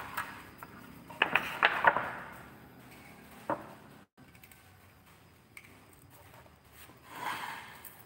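Wooden planks being handled: a quick run of wooden knocks about a second in, a single knock a little later, and a brief scrape of wood shifting near the end.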